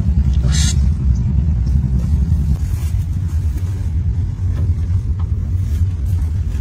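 Low, uneven rumble of wind buffeting the microphone, with a brief hiss about half a second in.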